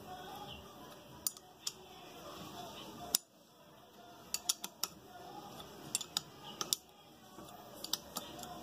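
Metal clinks of a box-end wrench on the diaphragm retaining bolt of a Comet APS 41 diaphragm pump as the bolt is tightened in short turns. There are about a dozen sharp clicks at uneven spacing, the loudest about three seconds in and a quick run of four near the middle.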